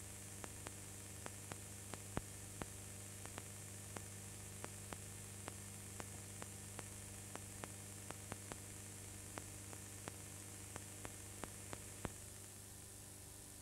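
Recording noise from a blank soundtrack: steady hiss and a low mains hum, with sharp clicks about two a second that stop near the end.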